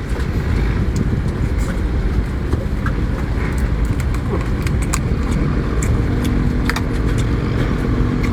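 Steady low motor rumble, with scattered sharp clicks over it; a steady low hum joins about six seconds in.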